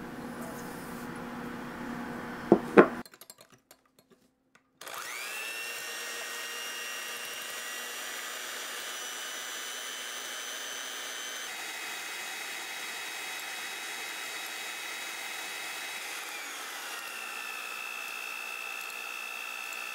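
Electric hand mixer whisking egg whites and sugar into meringue in a glass bowl: the motor whine starts about five seconds in, rising as it comes up to speed, and changes pitch about sixteen seconds in as it is turned down to low speed to smooth the meringue. Before the mixer starts, two sharp clicks.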